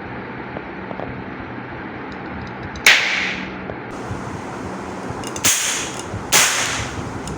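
Toy gun firing three sharp cracks, each fading over about half a second: one about three seconds in, then two close together near the end.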